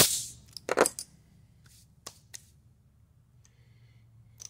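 A compressed-air blast clearing steel chips off a milling vise cuts off just after the start. It is followed by a few short clicks and knocks, the loudest just under a second in, over a faint low steady hum.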